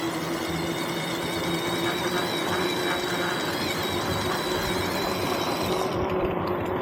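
Vehicle noise: a steady low hum, with a high, thin squeal that slides down at the start, wavers, and stops about six seconds in.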